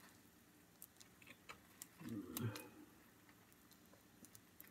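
Faint, scattered light clicks and taps of a metal fork against a ceramic baking dish, with one brief, low, muffled sound about two seconds in.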